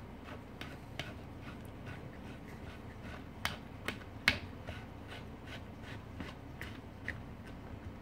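Light plastic clicks and ticks as a white threaded plastic fitting is turned by hand into the union at the base of a calcium reactor. The clicks come about twice a second, with three sharper ones about halfway through.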